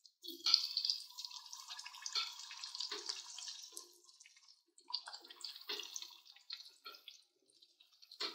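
Fish pieces frying in hot oil in a kadhai, sizzling and crackling. The sizzle is densest for the first few seconds after the pieces go in, then thins to scattered pops.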